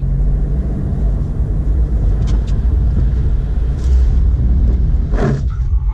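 Citroën car driving at about 56 km/h, heard from inside the cabin: a steady low rumble of engine, tyre and wind noise that grows slightly louder.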